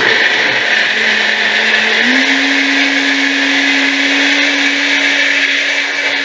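NutriBullet RX blender motor running steadily, blending a milky nut-milk mix. Its hum rises slightly in pitch about two seconds in, then holds steady.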